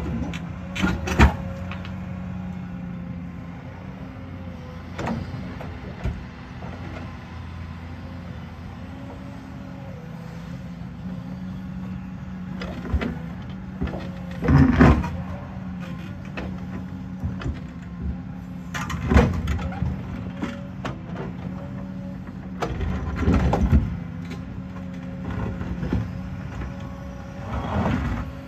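Tracked excavator's diesel engine running steadily with a wavering hydraulic whine, while its bucket knocks and scrapes against boulders several times, loudest about a second in, then around the middle and twice more later.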